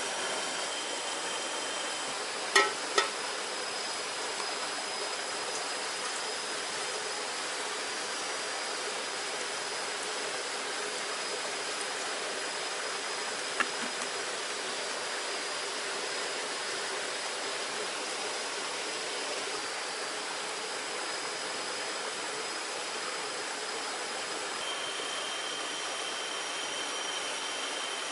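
Steady rushing background noise with faint, high, steady tones, broken by two sharp clicks about two and a half seconds in and another near the middle.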